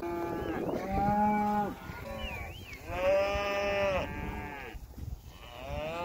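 Cattle in a herd being driven, mooing: about three long, drawn-out moos, one after another, from different animals.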